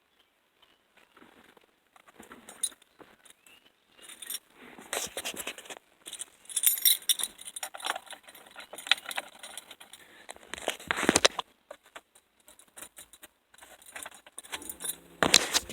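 Car keys jangling on their ring in irregular rattles and clicks, as though being worked at the ignition. In the last second a low mechanical sound with a steady pitch begins.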